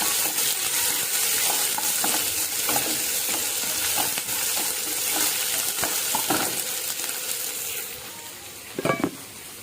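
Chopped onions and green chillies sizzling as they fry in hot oil in a pan, with a spatula stirring and knocking against the pan. The sizzle dies down near the end.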